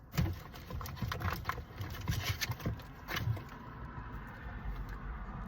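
Hands rummaging through a box of packaged items: a quick run of small clicks, knocks and rustles for about three and a half seconds, then quieter handling.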